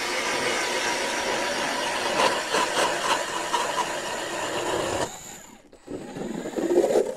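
StrikeMaster 40V battery-powered ice auger drilling a hole through lake ice: a steady electric-motor whine over the grinding of the blades in the ice, cutting off sharply about five seconds in, followed by a brief louder noise near the end.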